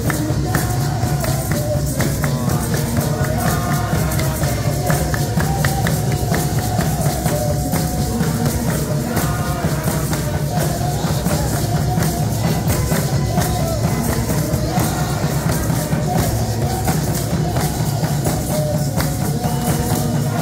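Congregation singing a Kinyarwanda gospel praise chorus together, with steady rhythmic hand clapping and conga drums played by hand.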